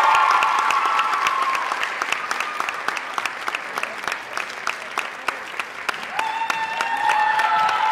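Audience applauding, with cheering voices over the first second or so and again near the end.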